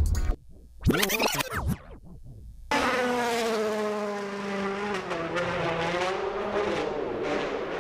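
Rally car engine at high revs, its pitch falling steadily as the car passes and draws away; it starts abruptly about three seconds in. A shorter engine sound with rising and falling pitch comes about a second in.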